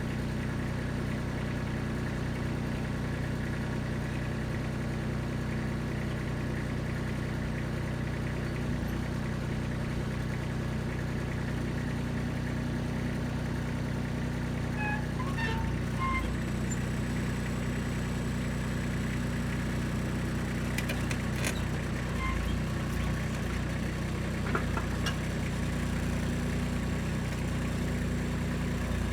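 Kubota B2630 tractor's three-cylinder diesel engine running steadily at an even speed, with a few short clicks and knocks in the latter half.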